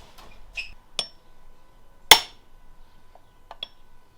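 Metal hand tools clinking against the transmission while the detent cap and snap ring are pushed in: a light clink about a second in, a sharp metallic knock with a short ring about two seconds in, then two small ticks.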